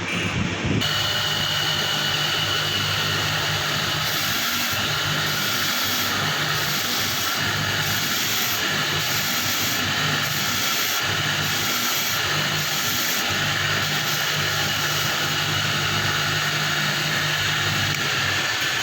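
A machine starts about a second in and runs steadily, giving a loud, even noise with a high whine and a faint regular pulse about once a second.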